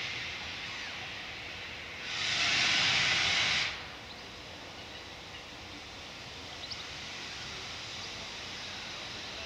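BR Standard Class 4MT 2-6-4T steam tank locomotive letting off a loud burst of steam hiss for under two seconds, about two seconds in, then cutting off sharply to a low steady hiss. A faint short chirp near the end.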